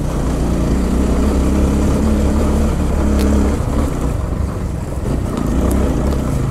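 Motorcycle engine running steadily, with a low even hum.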